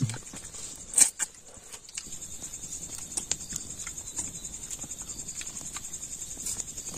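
Crickets chirping steadily in a high, even trill, with a few sharp clicks about a second in.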